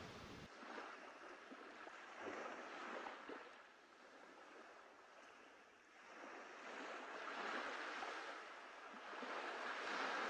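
Small sea waves washing onto the shore. The wash swells and fades in three slow surges, the last the loudest.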